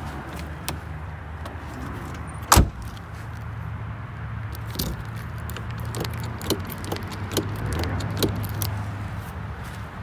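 A car door shutting with one solid thud about two and a half seconds in, followed by a run of small metallic clicks and jingles as a key is worked in the door-handle lock of a 1984 Porsche 944. A steady low hum runs underneath.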